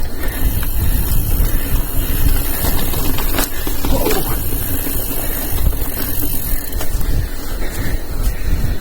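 Mountain bike riding a dirt trail: steady tyre and trail rumble, with wind buffeting the microphone.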